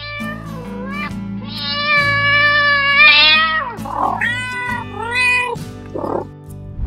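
Domestic cat meowing several times, with one long drawn-out meow in the middle, over background music.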